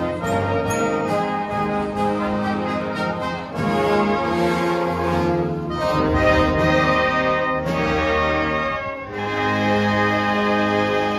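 Brass band with cornets, euphoniums and tubas playing, with sustained chords that change a couple of times.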